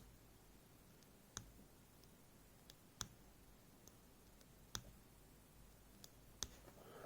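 Near silence with faint sharp clicks about every second and a half, and a few weaker ticks between: small metal parts of a disassembled pin-tumbler lock core being handled.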